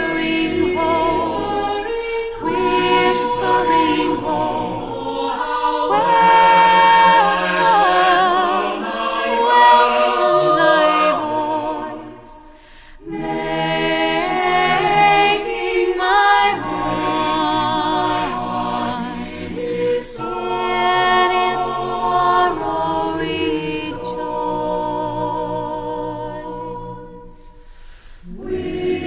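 Background music: a choir singing in harmony, with a short break between phrases about twelve seconds in and another near the end.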